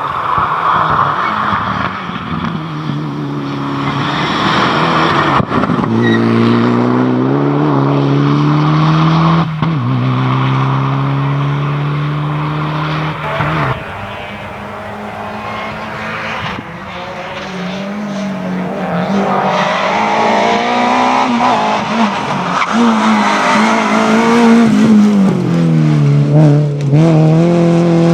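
Rally car engine at full throttle, its pitch climbing and dropping sharply at each upshift. A quieter dip comes about halfway through, then the revs rise and fall again in the second half, with tyre noise throughout.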